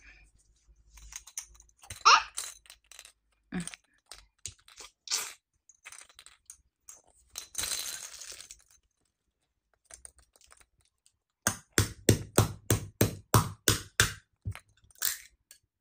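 Small plastic toy hammer rapidly tapping a golden plastic surprise egg to crack it open. In the last few seconds comes a quick run of about a dozen sharp knocks, three to four a second. Before that there are scattered clicks, handling sounds and a short rustle.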